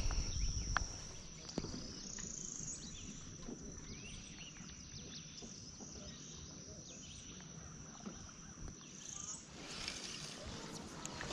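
Insects droning in a steady high-pitched chorus that steps slightly higher about two seconds in and stops near the end, with a few faint bird chirps over it. A low rumble is heard in the first second.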